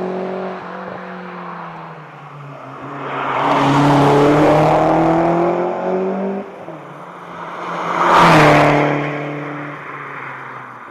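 Mazda MX-5's engine running hard at full rally pace, surging under acceleration twice, about three seconds in and again about eight seconds in, with a lift in between, then dropping away near the end.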